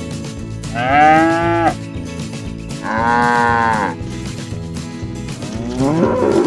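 Cattle mooing: three separate moos, each about a second long, the last one cut short at the end.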